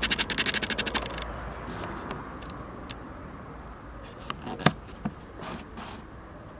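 Quiet garden background that opens with a brief rapid rattle, about fifteen clicks a second fading out within the first second, followed by a few isolated sharp clicks.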